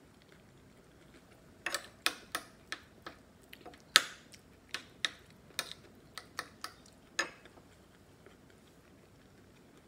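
Metal spoon and fork clinking and scraping against a ceramic plate while scooping rice and mung bean stew: about a dozen sharp, irregular clicks, the loudest about four seconds in, stopping after about seven seconds.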